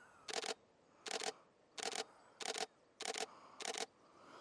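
Canon 90D DSLR shutter firing single frames in quick succession, about seven shots at roughly one and a half per second. Each shot is a quick double clack of mirror and shutter.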